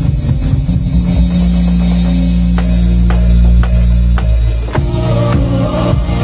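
Live band music with an electronic drum kit played through the sound system: a long held low note with single drum hits about every half second, then the full band and drums come in together about five seconds in.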